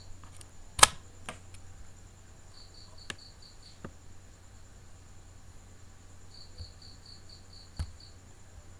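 Two runs of rapid, high, evenly spaced chirps, about six a second, like an insect chirping: one about three seconds in and one near the end, over a low steady hum. A sharp click about a second in is the loudest sound, with a few fainter clicks later.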